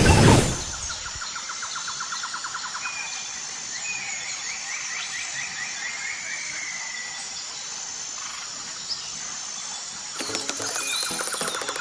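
Birds chirping and whistling over a steady outdoor hiss, opened by a brief loud whoosh. A fast, even mechanical rattle starts near the end.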